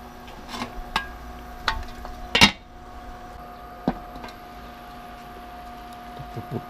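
Aluminium pot lid clanging down onto a wok about two and a half seconds in and knocked again when it is lifted off, with lighter clicks of cookware before it, over a steady low hum.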